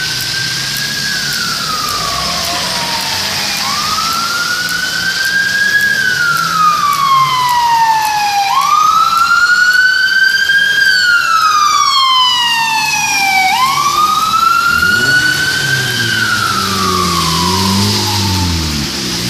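Ambulance siren wailing: each cycle rises quickly and then falls slowly, repeating about every five seconds and growing loudest in the middle as it comes close. A car engine revs near the end, over a steady hiss of traffic.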